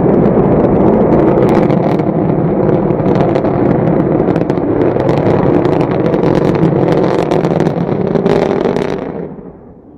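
Rocket engine noise: a loud, steady rumble full of crackle that starts abruptly and fades out about nine seconds in.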